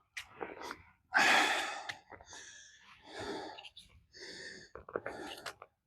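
A man breathing hard close to the microphone, about six loud breaths in and out, roughly one a second, the strongest about a second in.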